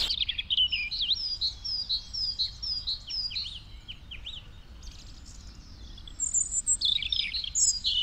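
Woodland songbirds singing: a series of short, falling high whistles repeated a few times a second, pausing midway and starting again near the end, over faint background noise.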